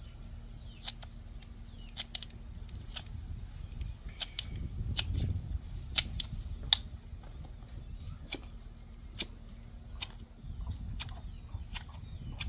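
Irregular sharp metallic clicks and ticks, small metal-on-metal contacts as an engine piston and its rings are turned and worked by hand, the loudest two about six and seven seconds in.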